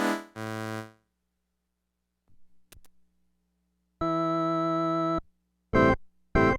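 Yamaha PS-20 portable keyboard being played: notes that stop about a second in, a pause with a couple of faint clicks, then a sustained chord held for just over a second, then two short stabbed notes near the end.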